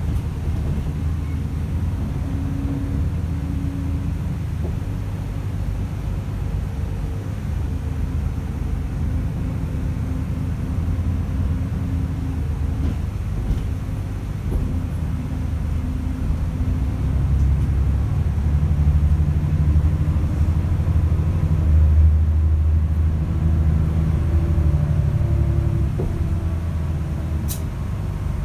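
Mercedes-Benz O405 N² city bus heard from inside the passenger cabin while under way: a steady low engine and drivetrain drone whose tones step up and down in pitch, louder in the second half, with a sharp click near the end. The ZF automatic gearbox has a damaged torque converter, which the uploader says is clearly audible on this ride.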